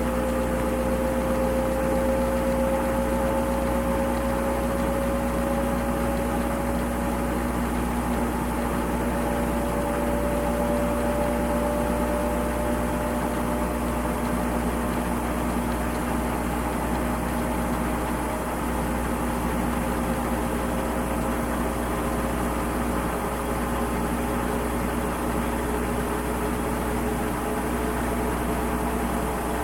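Washing machine running steadily: its motor makes a whine that rises slowly in pitch through the first half, over a constant hum.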